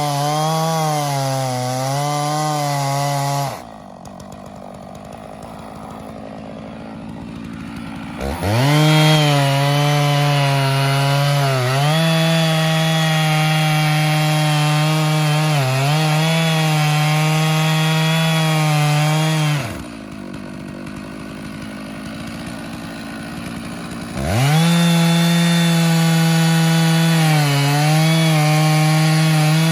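Stihl 660 Magnum two-stroke chainsaw on an Alaskan chainsaw mill, running at high revs as it rips lengthwise through a log. Twice, about three and twenty seconds in, the engine note falls away, then a few seconds later it revs back up to full speed and carries on cutting.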